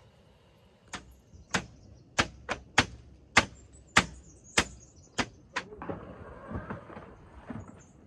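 About ten sharp knocks, roughly two a second, from setting up a caravan's roll-out awning and its upright poles. A few seconds of rustling and scraping follow.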